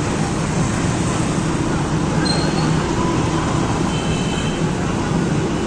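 Steady traffic noise from a busy city road, with faint background chatter.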